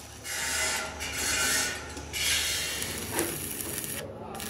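Arc welding on sheet steel: the arc crackling and hissing in short runs of under a second each, about three in a row with brief breaks between, over a low steady hum.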